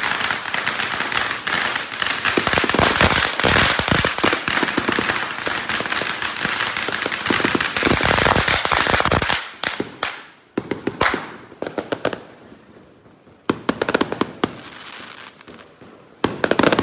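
Fireworks going off: a dense, rapid crackle of many pops and bangs that cuts off suddenly about nine and a half seconds in, followed by a few scattered single bangs.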